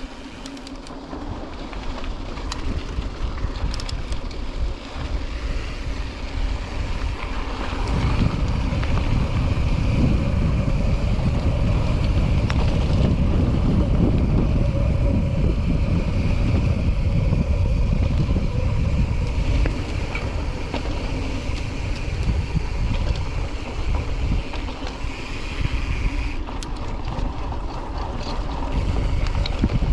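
Wind rushing over the microphone of a camera on a mountain biker riding along a road, a steady low buffeting that grows louder from about eight seconds in and eases near the end.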